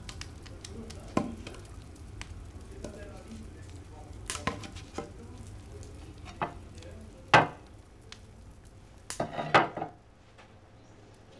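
Wood fire crackling in the open firebox of a cast-iron kitchen stove over a steady low rumble, then metal clanks as the stove's cover and hotplate lid are put back: one sharp knock about seven seconds in and a burst of clattering just before the rumble stops near the end.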